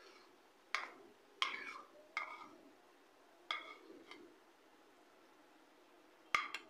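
A metal spoon clinking against a ceramic plate while thick chickpea-and-potato paste is scraped off it into a pan. Several short, sharp, ringing clinks come through the first few seconds, then a lull, then two more near the end.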